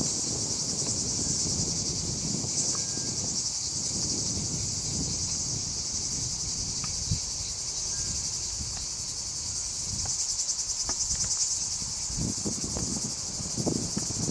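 Insects chirring in a steady, high-pitched chorus with a fast pulsing, over low gusts of wind on the microphone that come and go.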